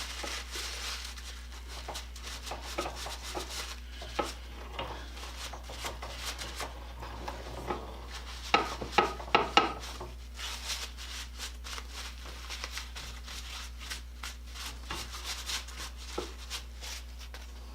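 Montgomery Ward hand-crank bench grinder being handled and worked: scattered light clicks and rubbing, with a quick run of sharp clicks about halfway through, over a steady low hum.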